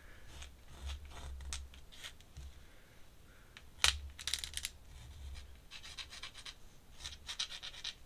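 Pen scratching on paper in short quick strokes, as a name is signed in ink, with one sharp tap about four seconds in.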